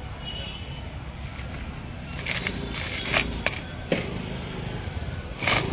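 Knocks and scrapes of a heavy cut log being shifted and stood on end against a pile of logs: several sharp knocks from about two seconds in, the loudest near the end, over a low steady background rumble.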